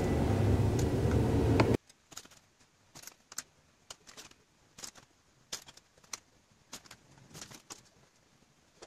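A steady low rumble cuts off abruptly about two seconds in. Near silence follows, broken by scattered faint clicks and taps of small chocolate pieces and their packet being handled as they are set on a cake.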